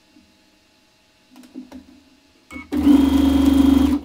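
Electric sewing machine stitching a patchwork seam. A few softer stitches come about a second and a half in, then it runs fast and steady for just over a second and stops near the end.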